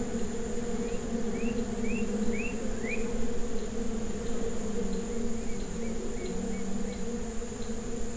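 Flies buzzing in a steady, wavering drone at carrion, over a steady high insect trill. About a second in, a small bird gives a quick run of five rising chirps, with a few softer chirps later.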